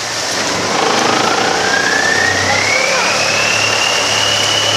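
Motorboat engine running loudly, getting louder about a second in as its high whine rises steadily in pitch and then holds level: the engine revving up as the boat gathers speed.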